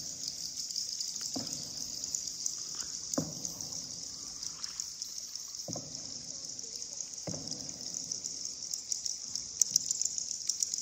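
River water splashing and trickling in separate strokes every second or two, like a paddle dipping and pulling, under a steady high-pitched hiss.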